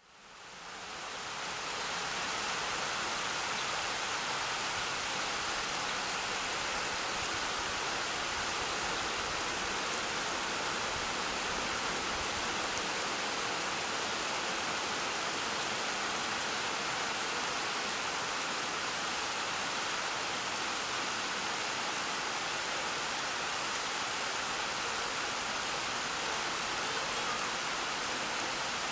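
Steady rush of flowing stream water, fading in over the first two seconds.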